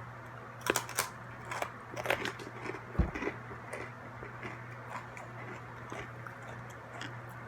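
Hard pretzel being bitten and chewed close to the microphone: several sharp crunches in the first couple of seconds, then softer, sparser chewing crunches. A low thump comes about three seconds in.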